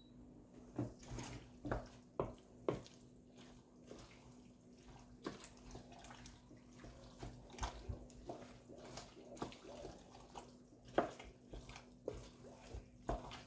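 Wooden spoon stirring cooked pasta in a stainless steel pot: irregular wet, squelching clicks and knocks of the spoon and pasta against the pot.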